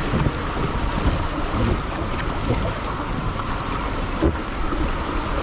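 Steady rush of water running down a tube water slide, with wind buffeting the microphone, and a single thump about four seconds in.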